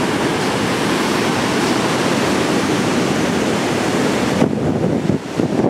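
Ocean surf breaking on a beach, a steady loud hiss, with wind on the microphone. About four seconds in the surf hiss cuts off abruptly, leaving low, gusty wind buffeting the microphone.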